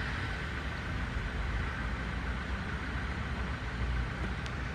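Steady outdoor ambience: a continuous low rumble like distant traffic, with a steady high-pitched hum over it and a faint click near the end.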